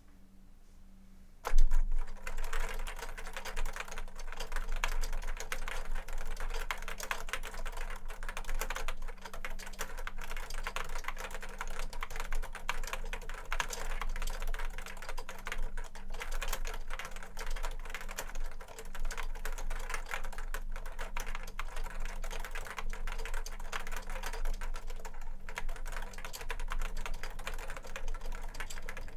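Fast, continuous typing on a JUKI Celavi FK212-JS keyboard with Topre Hipro switches on 25 g domes, the board raised on its feet and resting on two stacked desk mats. The typing starts about a second and a half in with the loudest keystroke.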